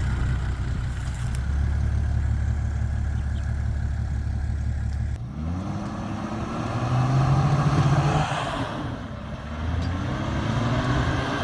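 4x4 engine running steadily, then, after an abrupt change about five seconds in, revving up twice in rising sweeps with a hiss over it: a vehicle straining to drive through deep, bogging sand.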